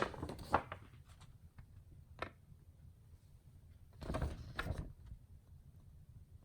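1955 Empire Aristocrat portable typewriter being handled after typing: a few scattered mechanical clicks, then a louder, noisier clatter lasting about a second, about four seconds in.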